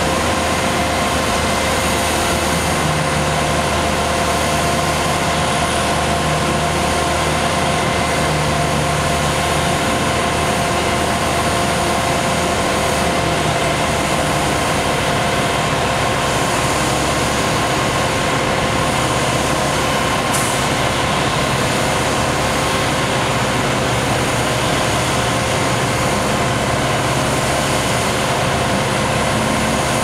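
Heavy diesel truck engines running steadily under load as a concrete pump truck pumps and a ready-mix truck spins its drum at high speed to mix in extra water, with a steady whine over the loud engine noise.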